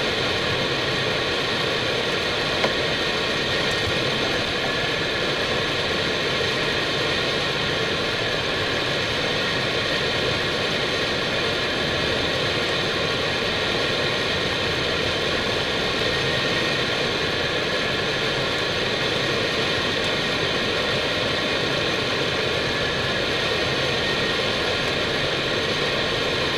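Airbus A319 flight deck noise on final approach: a steady, even rush with a few faint steady tones, and a single small click about three seconds in.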